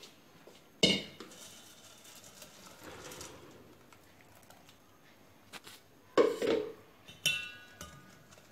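Stainless-steel strainer, spoon and bowl clinking together while blended guava juice is strained to remove the seeds: three sharp metal clinks, one about a second in and two close together near the end, the last ringing briefly.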